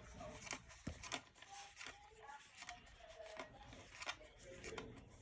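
Faint, irregular clicks and rubbing from hands and tools working on the air purifier's metal fixture and screws.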